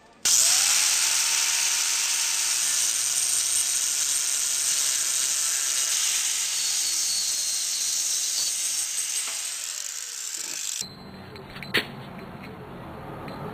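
Angle grinder with a cut-off wheel cutting through steel chain-link fence top-rail tubing: a loud, steady grinding of the wheel in the metal. It stops suddenly about eleven seconds in, and a single sharp click follows about a second later.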